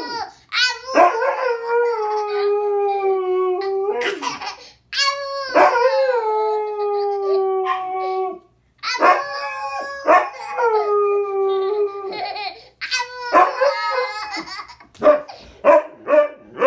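A dog howling: three long howls of about three seconds each, each sagging slightly in pitch, then a run of shorter, broken howls near the end.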